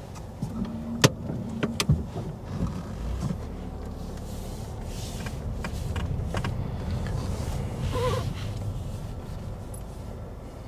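A Ford hatchback's engine and cabin noise heard from inside as the car pulls away at low speed. Two sharp clicks come about one and two seconds in.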